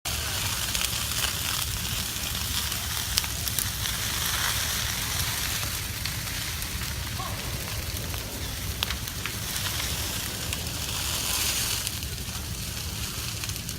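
Wildfire burning: a steady crackling hiss with scattered sharp pops over a low rumble.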